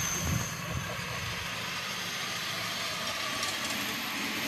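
Miniature live-steam locomotives hissing steadily, with a few faint clicks about three and a half seconds in.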